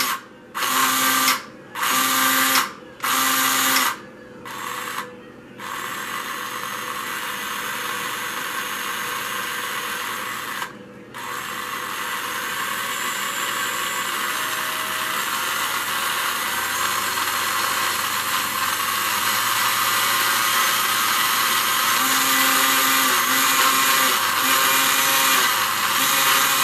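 Electric motor of a Carrera Digital 1/32 McLaren 720S GT3 slot car, held in place on the track by hand, revved in about five short bursts, then run continuously at speed with a high whine that grows slightly louder, cutting out briefly about eleven seconds in. It sounds real strong.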